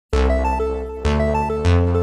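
Background music starting up: a bright keyboard-and-synth melody of short plucked notes over a changing bass line.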